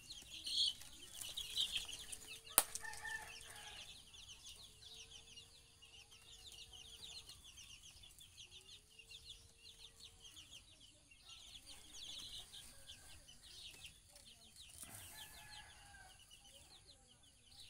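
Baby chicks peeping continuously, many rapid high cheeps overlapping. A single sharp click comes about two and a half seconds in, and a faint steady hum sounds on and off in the first half.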